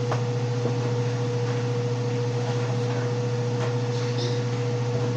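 Steady low hum with a constant higher tone above it, and a few faint clicks about a second apart near the start and once more past the middle.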